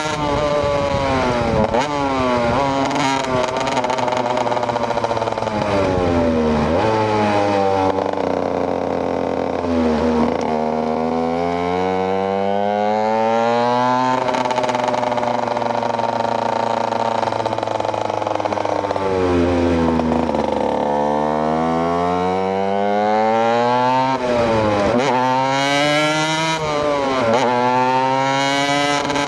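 KTM EXC 125 single-cylinder two-stroke motorcycle engine under way, its revs climbing and then dropping sharply several times, as at gear changes. The revs hold steady for several seconds in the middle, and there are quick up-and-down rev changes near the end.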